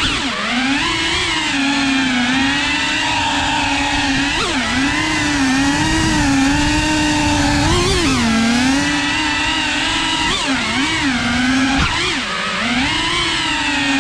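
FPV racing quadcopter's brushless motors and propellers whining, the pitch constantly rising and falling with the throttle, with a few sharper swoops as it manoeuvres.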